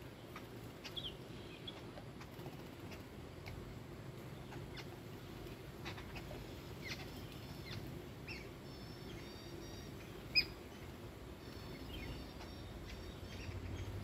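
Jungle babblers calling: scattered short high chirps, with runs of rapid repeated high notes near the middle and toward the end. One sharp, loud click about ten seconds in.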